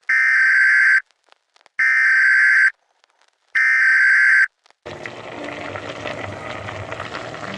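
Three long electronic beeps, each a steady high tone just under a second long, with short silent gaps between them.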